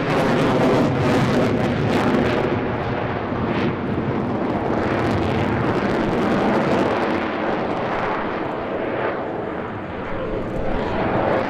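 F-22 Raptor fighter jet in flight, its twin turbofan engines giving a loud, steady rush of jet noise that eases slightly about ten seconds in.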